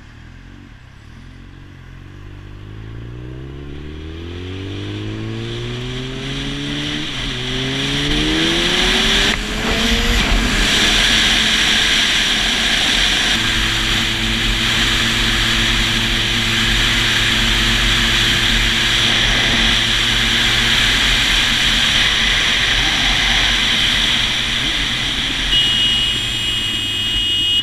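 Motorcycle engine pulling away and accelerating, its pitch rising, with a brief drop about seven seconds in before it climbs again; it then settles to a steady cruise under a loud rush of wind on the microphone.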